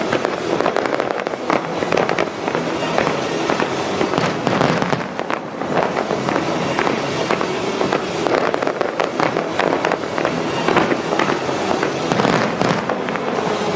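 Fireworks display: a dense barrage of bursts and crackles in quick succession, thickest about a third of the way in and near the end, over the music the show is timed to.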